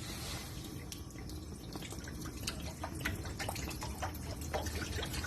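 Vinegar being poured into a cooking pot: a short pouring rush, then many small splashes and drips.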